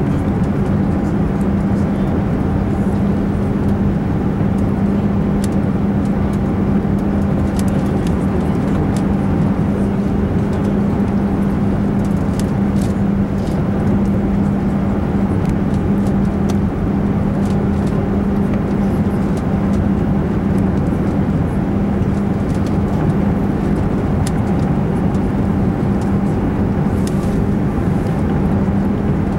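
Steady cabin noise inside an Airbus A380 descending to land: an even rush of engines and airflow with a steady low hum, and faint scattered ticks.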